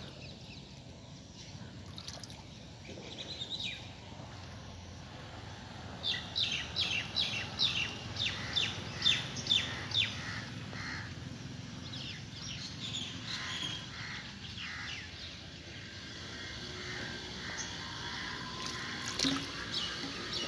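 Water trickling and dripping as it is slowly poured from a measuring cylinder into a sunken evaporation pan to top it up, with birds chirping. A quick run of sharp chirps, two or three a second, starts about six seconds in and lasts some four seconds.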